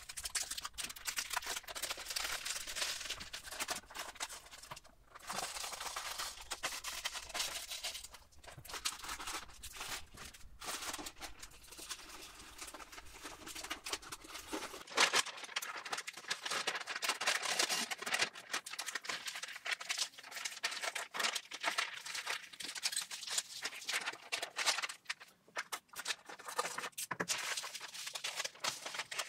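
Paper rustling and crackling as large sheets of paper are handled, with many small irregular clicks and rubs.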